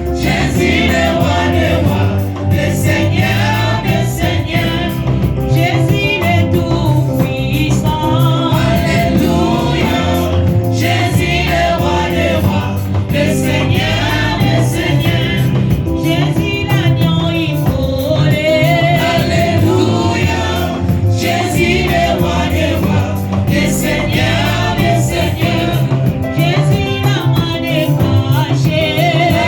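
Church worship singers performing a gospel praise song, several voices singing together over a steady instrumental backing.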